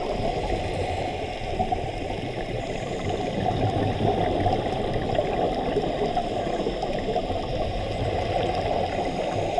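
Steady, muffled underwater noise picked up by a camera below the surface: an even rushing hiss with a fine crackle through it.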